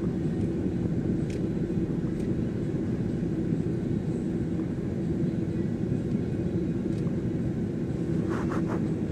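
Road and engine noise inside a moving vehicle's cabin: a steady low rumble, with a few faint ticks.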